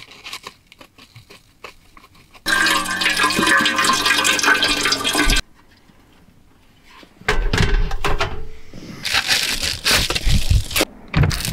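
Water pouring steadily into a container for about three seconds, then a run of knocks and clatter as a portable butane camp stove is handled and set in place.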